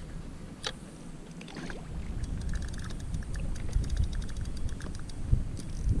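Water moving against a plastic kayak hull with wind on the microphone, growing louder about two seconds in. A run of fast, light ticks runs from about two to five and a half seconds in.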